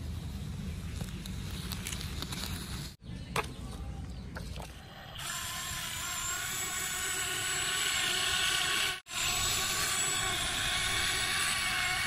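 A low rumble during the first three seconds. From about five seconds in, a toy RC excavator's small electric motors and gears give a steady high whine as it drives, cut off briefly about nine seconds in.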